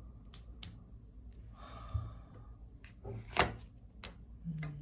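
Quiet handling noises: a few light clicks and taps, a brief rustle about two seconds in, and one sharper tap about three and a half seconds in.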